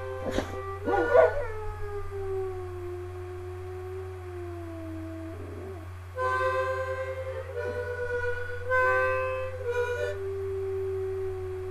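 Harmonica playing held chords while a boxer dog howls along with it.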